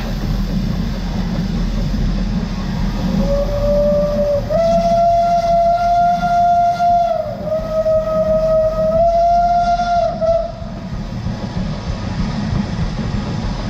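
Steam whistle of locomotive No. 92.2271, built by Krauss in 1919, blown in one long blast of about seven seconds that starts a little lower, steps up, and dips briefly in pitch midway. Under it is the steady rumble of the moving train.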